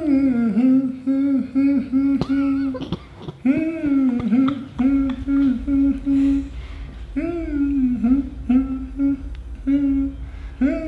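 A man humming a song's melody with a marshmallow in his mouth, in three phrases of held notes with short breaks between them.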